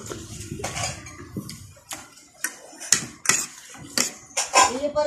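Spoon and fork clinking and scraping against a plate while eating, a string of sharp clinks about every half second.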